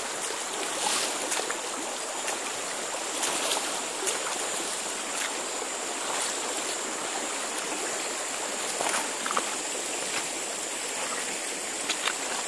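Shallow stream flowing steadily over a rocky bed, with short splashes and knocks now and then from feet wading through the water and over stones.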